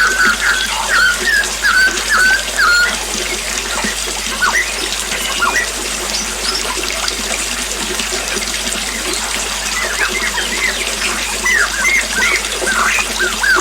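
Small waterfall splashing steadily, with songbirds chirping over it: a run of repeated short chirps in the first few seconds, a few scattered calls in the middle, and a busier burst of chirps near the end.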